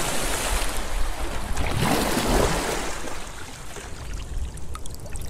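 Water sound: a rush of splashing, pouring water that swells again about two seconds in, then fades into gurgles and drips near the end.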